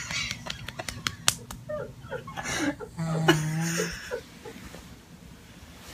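A man snoring in his sleep, with a pitched, nasal snore held at one steady note for about a second, about three seconds in. Faint short blips and small clicks sit around it.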